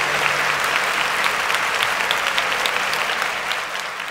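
Applause: many people clapping together, steady, then fading out near the end.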